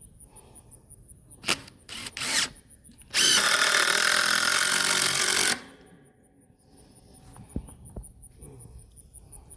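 Power drill driving a screw into a 2x4 fence post: two brief blips, then one steady run of about two and a half seconds.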